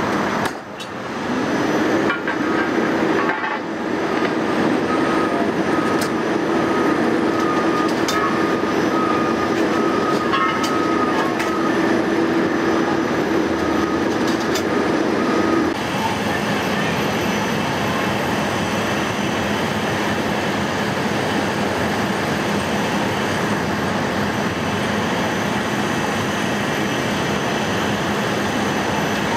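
Loud steady rumble of fire apparatus diesel engines running beside a large building fire, with a low steady hum that drops out about halfway through.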